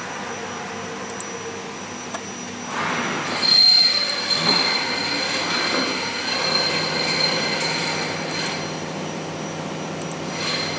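Steady machinery noise with a hiss, growing louder about three seconds in, with a high steady whine through the middle and again near the end.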